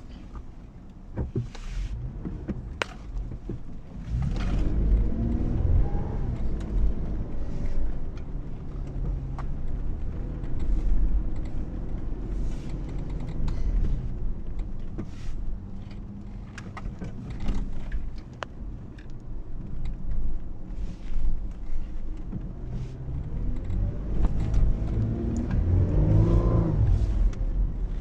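Toyota Prado engine running under load off-road over a steady low rumble. It revs up with a rising pitch about four seconds in and again near the end, with scattered knocks and rattles throughout.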